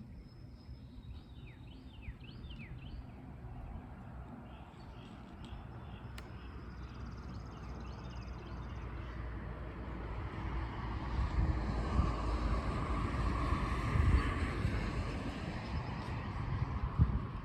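A train's rumble grows steadily louder over about ten seconds as it approaches, loudest near the end. Birds chirp briefly near the start.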